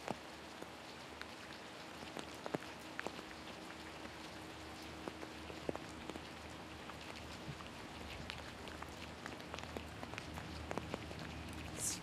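Faint steady patter of light rain, with many scattered small drop-like clicks and a brief high hiss near the end.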